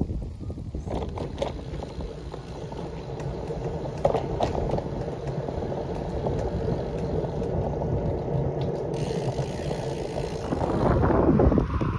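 Wind rushing on the microphone of a moving bicycle, with light rattling and a few knocks from the bike over the road. The rushing grows louder near the end.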